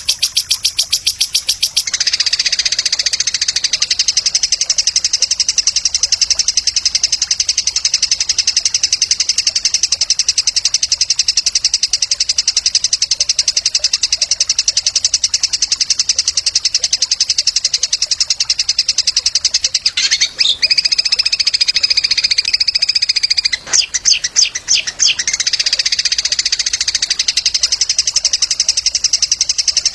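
A small songbird singing a very fast, high-pitched rattling trill almost without pause. Around two-thirds of the way through it breaks briefly into a few separate notes, then goes back to the trill.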